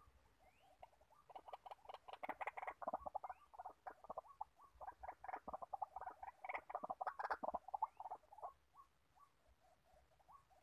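White-breasted waterhen calling: a rapid run of short clucking notes that starts about a second in and stops a couple of seconds before the end, with a few soft scattered notes before and after.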